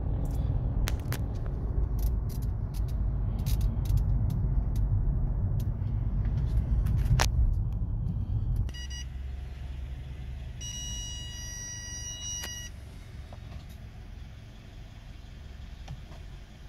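Low rumble of road and running noise inside a Mercedes E-Class W212 cabin, with scattered clicks, for the first eight seconds or so; then it drops to a quieter hum. About eleven seconds in, a steady electronic tone sounds for about two seconds.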